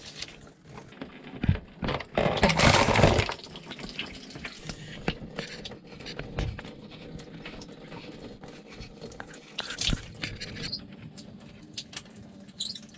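Cooling water draining out of the open block and exhaust-manifold drain ports of a Volvo Penta 5.7 GSi marine V8, pouring and trickling as the engine is emptied for winterizing, with a louder rush for about a second, two seconds in. Scattered clicks of plugs and tools being handled.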